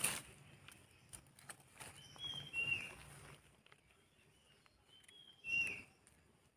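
A bird calling twice, each a short high note that falls slightly in pitch, about two seconds in and again near the end. Faint rustling and clicks of dry leaves and soil come in the first second or so as mushrooms are cut from the ground with a knife.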